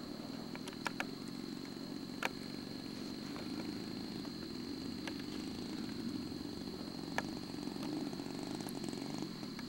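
Quadra 75cc two-stroke petrol engine of a giant radio-controlled Bf 109E model, running steadily at idle. A few sharp clicks come through about a second in, at about two seconds and at about seven seconds.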